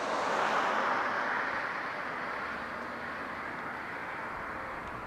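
Airbus A340-300's four CFM56 turbofan engines at takeoff thrust during the takeoff roll: steady jet engine noise, loudest in the first second or two, then easing slightly.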